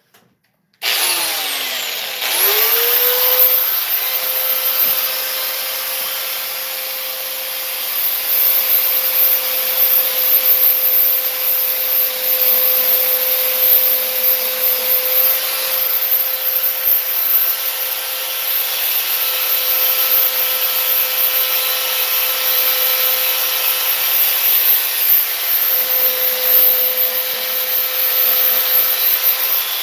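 Electric sander switched on about a second in, spinning up to a steady whine, then sanding down a coat of filler on a fiberglass door panel with continuous rubbing noise.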